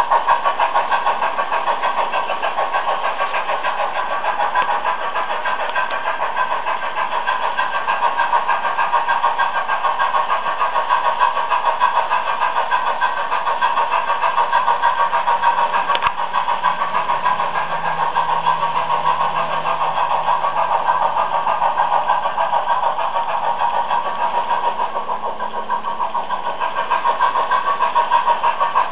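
Märklin H0 model train running on metal track: a steady, very fast rattle of wheels and pickup shoe over the rails, with the electric motor's whirr. A single sharp click about halfway through.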